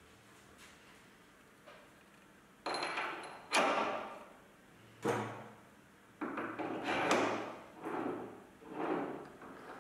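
Machined metal die holder body slid back and forth over its close-fitting shaft by hand: several smooth metal-on-metal sliding swishes that begin about a quarter of the way in.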